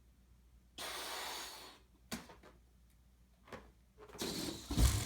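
A dog handling a rubber balloon: a soft hissing rub for about a second, a few light taps, then scuffling rubbing and a dull thump near the end.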